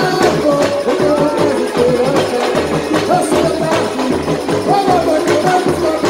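Live samba band playing: surdo drums keep a steady low beat about twice a second under tamborins and shakers, with a cavaquinho and a singer carrying the melody.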